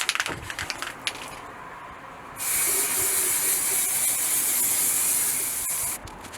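Aerosol can of primer spraying: one steady hiss of about three and a half seconds, starting a couple of seconds in and stopping near the end, after a few faint clicks.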